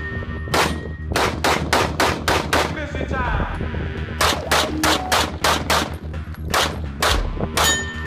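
Rapid handgun shots in quick strings of about three or four shots a second, with a pause of about a second near the middle.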